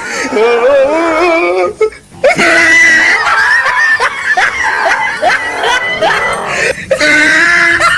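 Excited human voices laughing and shrieking over background music, with two brief breaks.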